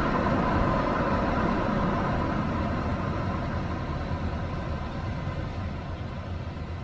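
Nissan Serena (C25) minivan on the move: steady engine and road noise that gradually gets quieter.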